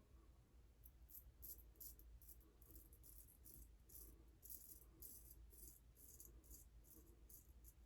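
Shaving brush scrubbing shave soap into a lather on the face: faint, quick swishes about three a second.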